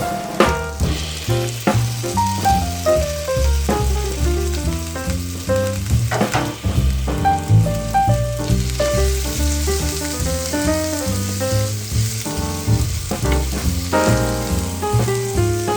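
Food sizzling as it stir-fries in hot oil in a pan, with a few sharp clicks, over background music with a melody and a bass line.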